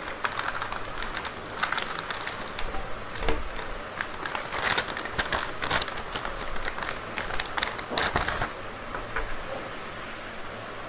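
Crinkling and rustling of a clear plastic stationery-kit pouch being opened and handled, with many light clicks and taps as the items are taken out and set down on the floor. It dies down to a faint hiss about nine seconds in.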